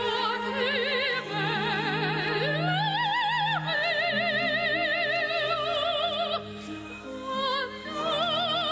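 Operatic singing with a wide vibrato over an orchestral accompaniment; about two and a half seconds in, the voice slides up into a long held note.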